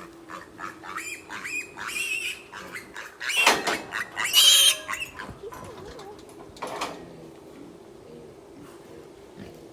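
Pigs grunting and squealing, with the loudest squeals about three and a half and four and a half seconds in, then dying down to a steady low hum.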